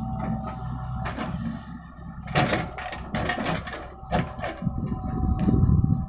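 JCB 3DX backhoe loader's diesel engine running with a steady low rumble and a steady whine, while knocks and clatter from the bucket and dumped soil come from about two to four and a half seconds in. The engine grows louder near the end as the bucket digs back into the ground.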